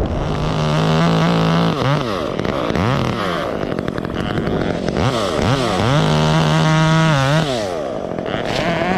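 A chainsaw revving up and down several times, held at high speed twice.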